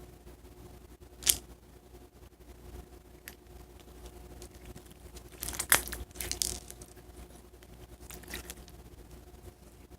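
Clear topping slime being handled by hand: scattered sticky clicks and crackles, with a sharp pop about a second in and the loudest cluster of crackles around the middle.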